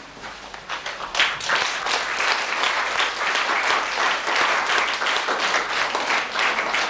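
Audience applauding, the clapping starting about a second in and quickly building to steady applause.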